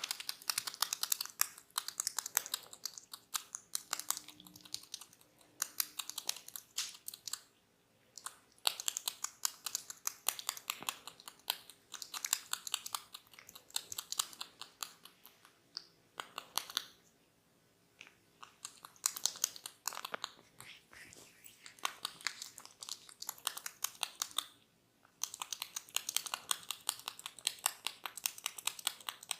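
Close-miked crackly scratching on a person's head by a barber, rapid little clicks and rasps in runs of several seconds with short pauses between.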